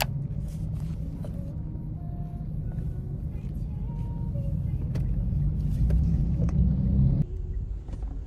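Car interior noise: a steady low rumble from a car on the road, heard from inside the cabin, with a few faint clicks. The rumble drops abruptly about seven seconds in.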